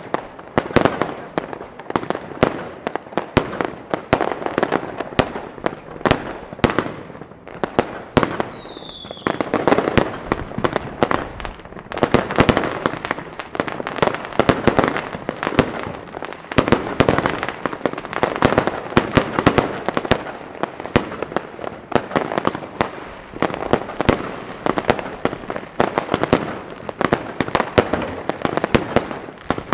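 Fireworks going off in quick succession: a dense, continuous run of bangs and crackles from aerial bursts, with a short falling whistle about eight seconds in.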